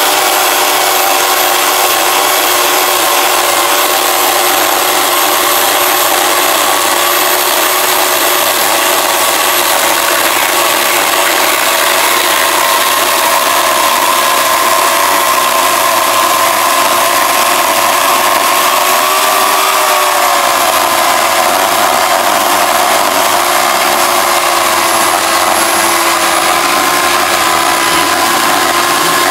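Craftsman electric chainsaw running steadily as it cuts through a tree stump. Its motor pitch sags slightly about twenty seconds in as the chain bites harder into the wood.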